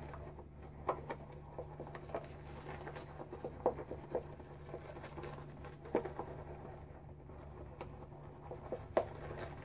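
Boar-bristle shaving brush whipping shaving cream in a bowl, working in freshly added water: soft wet squishing with irregular small clicks and taps, over a steady low hum.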